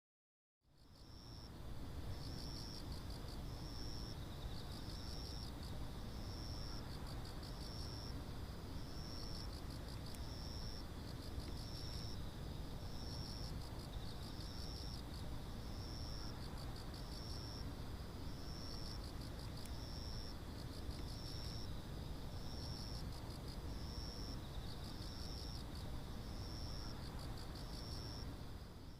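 Night insects, crickets, chirping: one gives a short high chirp about once a second over another's steady high trill, above a low, even background rumble.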